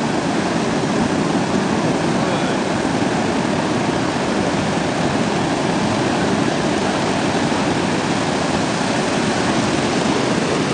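Ocean surf breaking and washing up the sand, a steady rushing noise.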